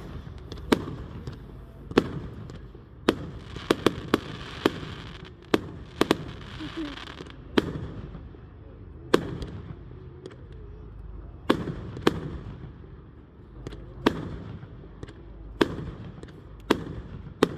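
Fireworks display: a string of sharp bangs from bursting aerial fireworks, irregularly spaced, mostly one to two seconds apart, with a few quick clusters. A hissing crackle fills the gaps between bangs around the middle.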